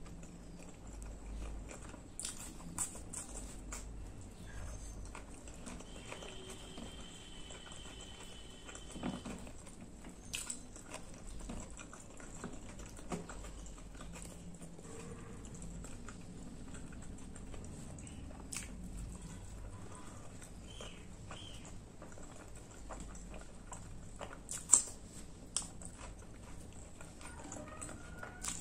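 Close-miked eating sounds of a person chewing chickpea curry and fried bread: soft wet smacks and small clicks throughout, with one sharper click near the end.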